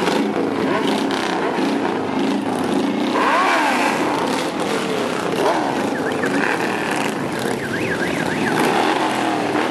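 Several motorcycles riding slowly past in procession, engines running. One engine revs up and back down about three seconds in.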